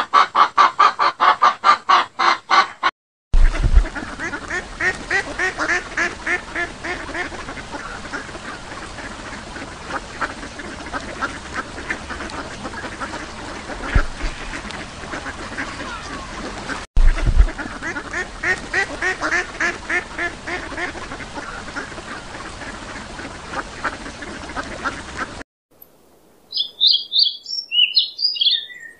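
A hen clucking in a fast run of calls, then a flock of mallard ducks quacking over and over for about twenty seconds, with a brief break partway. Near the end a Eurasian siskin gives quick high chirps.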